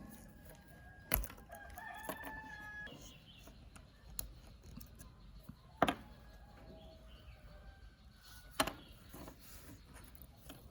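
Three sharp clicks or knocks, about a second, six seconds and eight and a half seconds in, with a rooster crowing once in the background between them.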